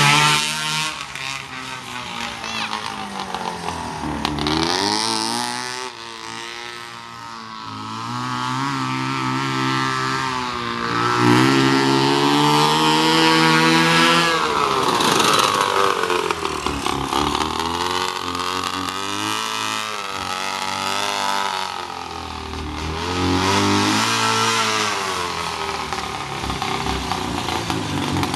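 Home-built buggy's 500cc two-stroke Ski-Doo snowmobile engine running as the buggy is driven along the street, its pitch rising and falling again and again with the throttle. It swells louder several times as the buggy comes close.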